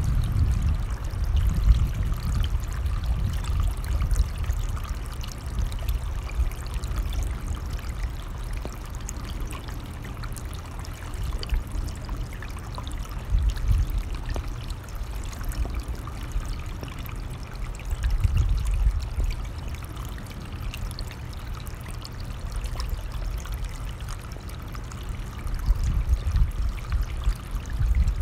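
Running stream, a steady rush of water, with gusts of wind rumbling on the microphone that swell at the start, about halfway through, around two-thirds in and near the end.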